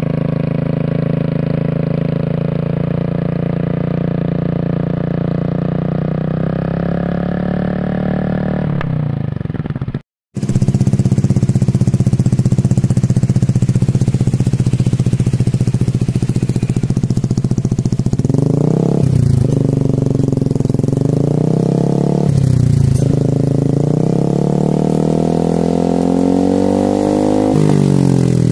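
Single-cylinder automatic scooter engines idling through aftermarket racing slip-on exhausts: first a Honda BeAT with an RCB muffler, then, after a brief cut about a third of the way in, a second scooter with an Austin Racing muffler. The second scooter is given two short throttle blips, then a longer rev that rises steadily and drops back near the end.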